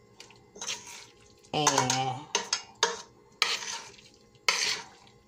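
Spoon stirring and scraping a thick salmon patty mixture in a stainless steel pot, in several short scrapes, with a brief voice sound about one and a half seconds in.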